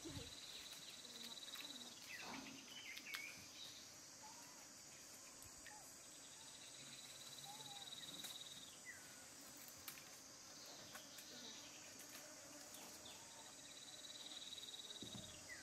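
Faint insect trilling: a steady, high, finely pulsed trill in spells of about two seconds, three times over, with a few faint short chirps between.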